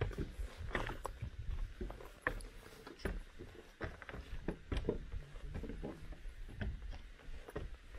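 Footsteps on wooden stairs and platform boards: irregular knocks and thuds over a low rumble.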